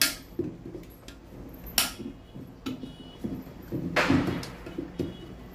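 Clear plastic lid being handled and fitted onto a mixer-grinder jar: a few sharp plastic clicks and knocks, the clearest near the start and just under two seconds in, with a scraping rub about four seconds in.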